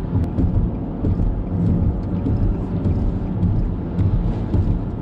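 Steady low rumble of a car driving at highway speed, heard inside the cabin, with scattered raindrops ticking on the windshield.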